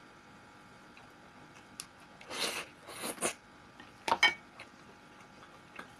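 Close-up eating sounds of a person eating pelmeni with sour cream: after a quiet start, a few short noisy smacks and scrapes about two to three seconds in, then two sharp clicks of a spoon on a ceramic plate about four seconds in.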